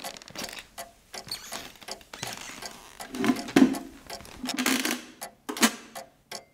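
Irregular small clicks, scrapes and rustles, growing louder with a few harsher scraping sounds in the second half, then stopping just before the end.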